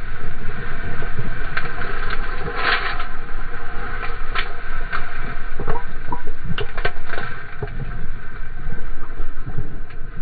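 Surfboard riding across a breaking wave: water rushing and splashing close by, with a low rumble under it. A run of sharp splashes comes through, the strongest about two and a half seconds in, and more follow over the next few seconds.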